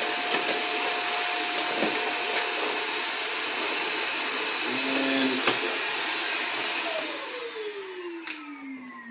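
Upright vacuum cleaner running steadily, its hose sucking the air out of a foil food-storage bag before sealing. About seven seconds in it is switched off and the motor whine falls away as it spins down.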